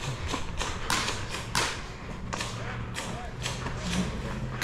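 Footsteps on a gravel path, about two steps a second, as a player walks forward cautiously.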